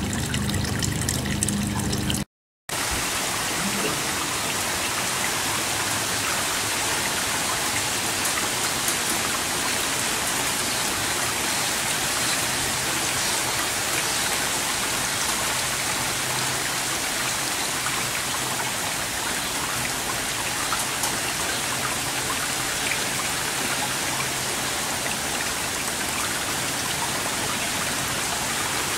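Steady, even hiss of falling water, with no separate drips or splashes standing out. It drops out for a moment about two and a half seconds in, then runs on unchanged.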